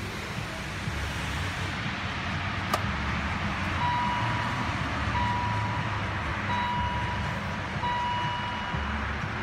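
A single sharp click, then four evenly spaced electronic beeps, each a clear tone lasting just under a second, over a steady low rumble.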